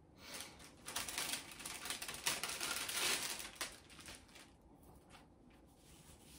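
Sheets of paper and cardstock rustling and crinkling as they are handled, with quick light clicks mixed in, from about half a second in until about four seconds in.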